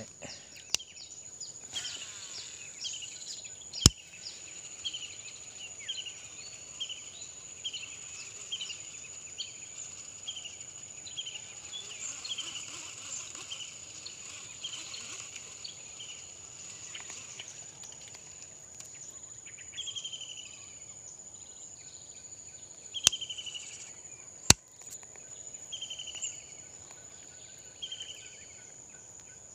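Insects droning with a steady high whine, with a run of short chirps repeating about every half second through the first half. Three sharp clicks stand out as the loudest sounds, one about four seconds in and two close together near the end.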